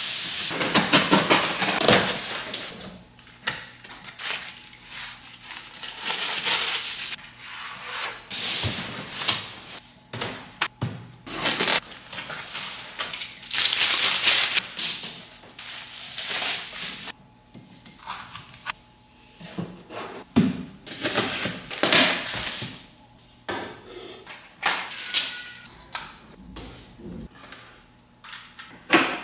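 Cardboard boxes and packaging being handled and unpacked: rustling, crinkling and tearing in a string of separate bursts, with a few knocks as items are set down on a desk.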